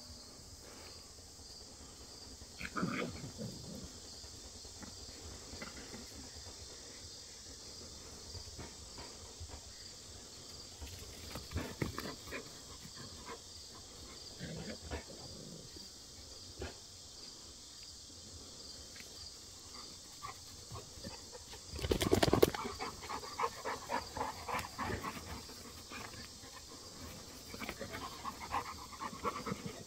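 A St. Bernard puppy and a larger black dog at play, with short dog vocal sounds now and then. The sounds are loudest and most frequent from about 22 seconds in, and pick up again near the end.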